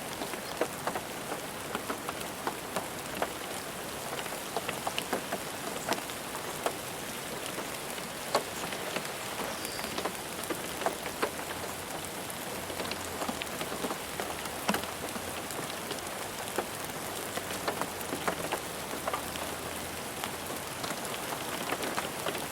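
Steady rain falling on a car roof: an even patter with many separate drops ticking sharply on the metal at irregular moments. A faint low rumble sits underneath for a few seconds in the middle.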